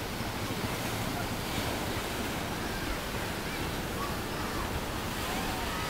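Bono tidal bore: a muddy river wave breaking along the bank, heard as a steady rush of surf, with wind on the microphone.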